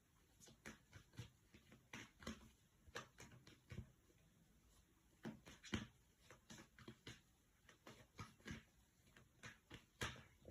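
Faint, irregular clicks and taps, one or two a second, with a slightly louder tap near the middle and another near the end.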